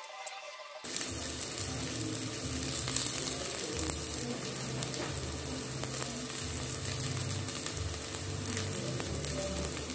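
Chopped onions frying in hot oil in a pan: a steady sizzle with crackling, which starts abruptly about a second in.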